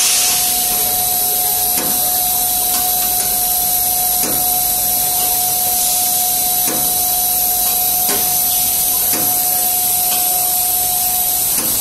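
Nylon (PA) pipe extrusion line running: a steady hiss with a steady whine, which stops just before the end, and faint short knocks every one to two seconds.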